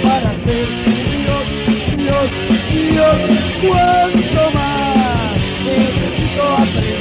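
Punk rock band playing with two electric guitars, bass and drums in a four-track demo recording, drums hitting steadily under a melody of sliding, bending notes, with no vocal line.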